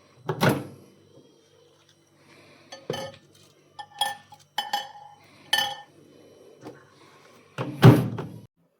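Dishes being handled: about six separate knocks and clinks, several with a short ring, the loudest knock near the end.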